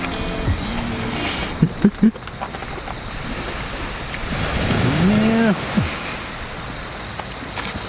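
A person hums a long 'mmm' of enjoyment about five seconds in, rising and then falling in pitch, after a couple of short hums near two seconds. Under it runs a steady, high-pitched insect drone and a constant hiss.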